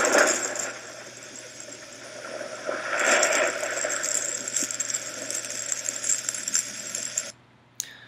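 Audified induction magnetometer data played back as sound: a thunder-like noise with a high scratchiness. It swells twice, then cuts off suddenly about seven seconds in as playback stops, followed by a single click.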